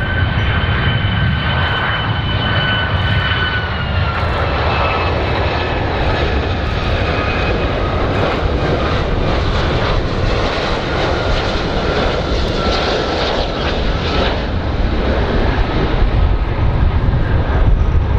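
Boeing 757's twin Rolls-Royce RB211 turbofans on final approach with the gear down: a steady jet rumble with a high whine over it. The whine's pitch drops slightly about four seconds in and again a few seconds later.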